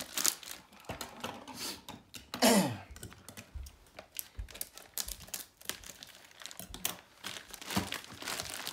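Packaging and plastic parts being handled: crinkling and rustling with scattered light clicks and taps, and one loud squeak falling in pitch about two and a half seconds in.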